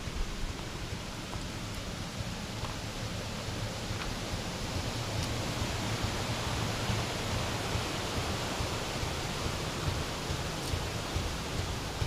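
Steady rush of a stream flowing under a footbridge, an even hiss that grows a little louder about halfway through.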